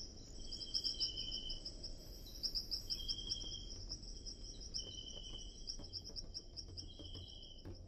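Insects trilling in a steady high chorus, with a lower, shorter trill coming in about every two seconds.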